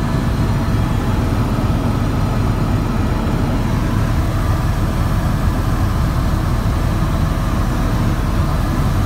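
Steady drone of a helicopter's engine and rotors heard from inside the cabin in flight: a heavy low rumble with a few faint steady higher tones above it.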